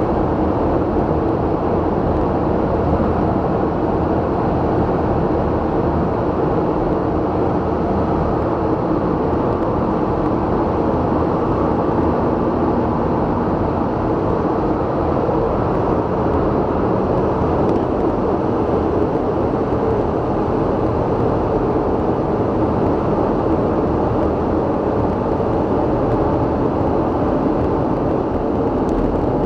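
Steady, unchanging vehicle noise: a constant low rumble with a faint hum in it, with no passes, starts or stops.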